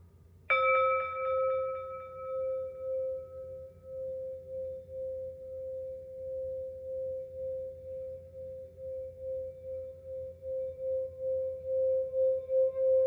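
Singing bowl struck once, ringing with a clear steady tone and brighter overtones that die away over a few seconds. The main tone holds on with a regular pulsing waver and swells louder near the end.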